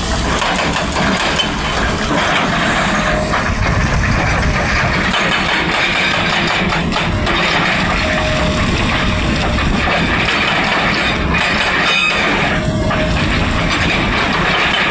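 Excavator working, its engine running under load with continuous dense mechanical noise.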